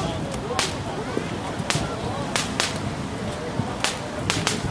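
Fireworks going off: about eight sharp cracks at irregular intervals, over the steady noise of a crowd.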